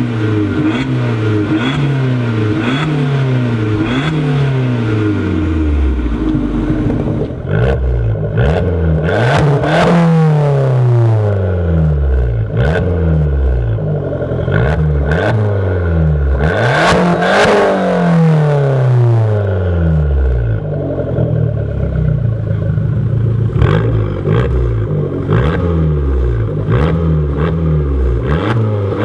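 Abarth 500's 1.4 T-Jet turbo four-cylinder revved repeatedly while standing still. At first it runs on the stock exhaust with quick blips about once a second. After several seconds it changes to a Magneti Marelli Bombardone 2.0 aftermarket exhaust, with longer rises and falls in revs and sharp pops and crackles as the revs drop.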